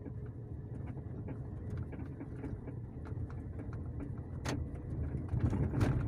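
Nissan Sentra driving slowly over uneven pavement: a low rumble with short clicks and knocks from the right front suspension, the sharpest two near the end. The noise comes from a damaged coil-spring seat that lets the spring click and rub against the strut's spring plate.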